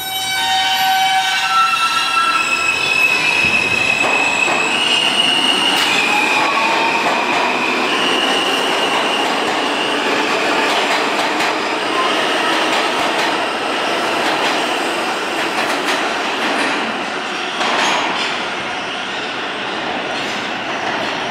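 R160 subway train pulling out of the station and accelerating. The propulsion motors whine in stepped tones, then in a rising pitch, over the rumble and clatter of the wheels on the rails as the cars pass. It eases off slightly near the end as the train goes into the tunnel.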